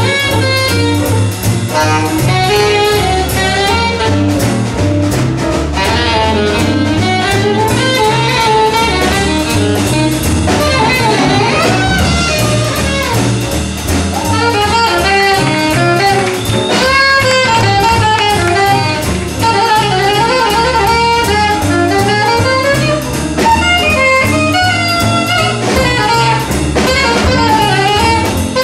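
Jazz big band playing a swing tune live, a saxophone to the fore over upright bass and drum kit, with the brass section behind it.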